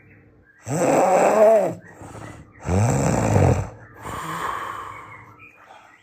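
Loud snoring: three rasping snores in quick succession, each with a rising-then-falling pitch, the third weaker and breathier.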